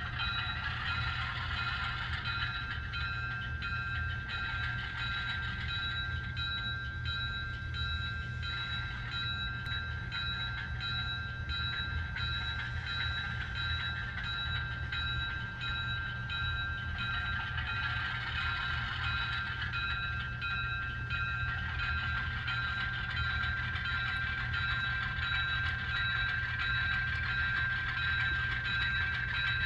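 HO scale Atlas ALCO diesel locomotive's factory sound decoder playing a diesel engine running steadily, with the locomotive bell ringing about twice a second, through the model's small onboard speaker.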